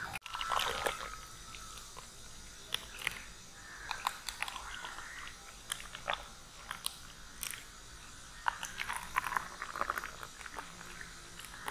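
Strawberry juice poured from an aluminium pot into plastic cups: faint trickling with scattered light clicks and taps.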